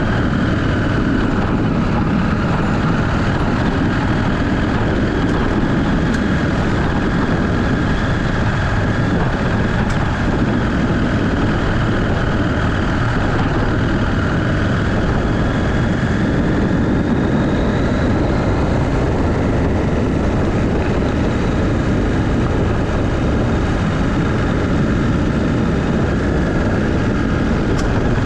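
Motorcycle under way, its engine running steadily under a constant rush of riding noise.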